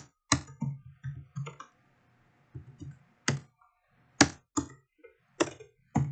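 Typing on a computer keyboard: uneven key clicks, a handful of them sharper and louder, with a short pause about two seconds in.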